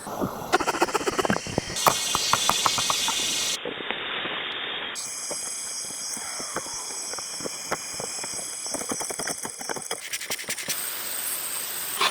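Woodworking sounds in a run of short edited clips: sharp wooden taps and clicks, and stretches of steady hiss of wood being cut or shaved, each clip cutting off abruptly into the next.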